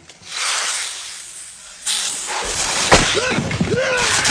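A snake's loud hiss that fades over about two seconds, then a sharp knock about three seconds in, followed by a voice crying out in short rising-and-falling yelps as the snake strikes.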